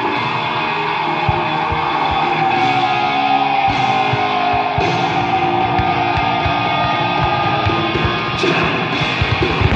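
Rock music with electric guitar and a steady drum beat, played over the show's loudspeakers.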